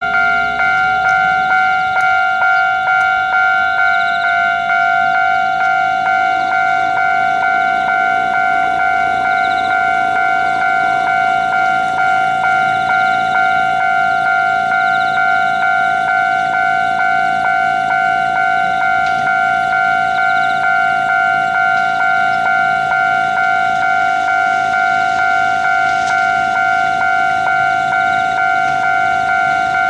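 Japanese railway level-crossing warning bell ringing, a steady repeated electronic clang about two strikes a second, warning of an approaching train.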